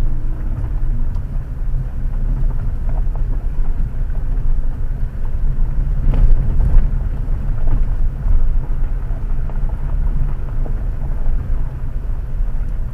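Steady low rumble of a 2018 Jeep Compass Trailhawk crawling uphill on a gravel road, heard inside the cabin: engine and tyres rolling over gravel. A brief knock about six seconds in.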